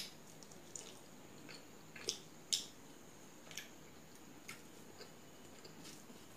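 A person eating rice and fish curry by hand and chewing: scattered short wet clicks and smacks of the mouth, the loudest two about two and two and a half seconds in.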